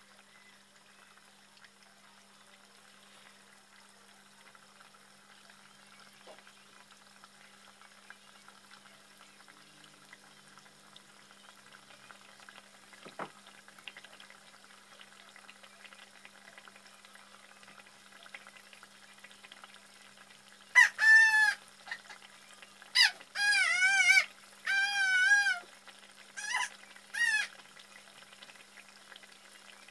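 Coated turkey pieces deep-frying in a pot of oil with a faint, steady bubbling hiss. Near the end a run of six or so loud, high, wavering cries breaks in, the loudest sound here.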